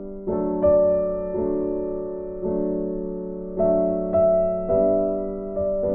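Background music: soft chords struck about once a second, each slowly fading before the next.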